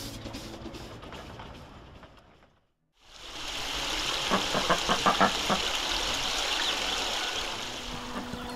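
A faint sound fades out to a brief silence. Then a steady outdoor hiss of running water fades in, with a few soft footsteps on a paved path.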